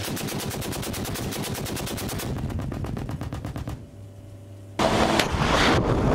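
Towed anti-aircraft cannon firing a long burst of rapid, evenly spaced shots that stops a little over halfway through. Near the end a loud, dense blast of noise sets in.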